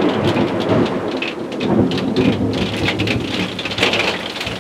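Thunder rumbling, loudest at the start and rolling on through, while rain patters on the roof of an enclosed box hunting blind.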